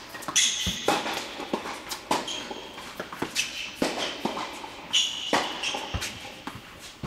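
Tennis rally on an indoor hard court: sharp pops of racket strikes and ball bounces, with sneakers squeaking on the court surface several times and quick shuffling footsteps.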